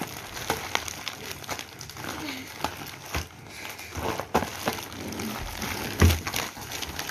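Plastic courier mailer and foil bubble wrap crinkling and rustling in quick, irregular crackles as a wrapped bottle is pulled out of the bag by hand. One louder knock comes about six seconds in.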